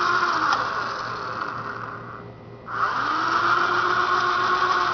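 Electric drill running as it bores into the wooden door beside the lock's screw. It winds down and stops about two seconds in, then starts up again about half a second later.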